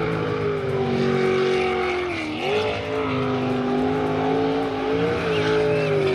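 Engine sound, running at a steady pitch that dips briefly about two seconds in and climbs back, then cuts off abruptly at the end.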